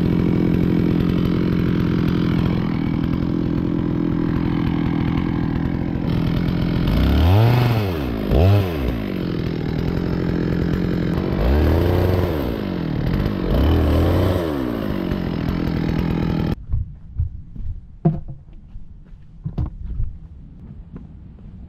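Stihl chainsaw cutting into a dead elm trunk, running steadily under load, then revved up and down several times. It cuts off abruptly about three-quarters of the way through, leaving a quieter low rumble with a few sharp knocks.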